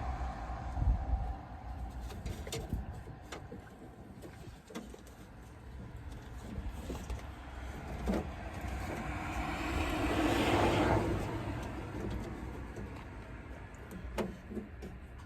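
A car passes by, its noise swelling and fading away about ten seconds in, over a low rumble with scattered small clicks and taps.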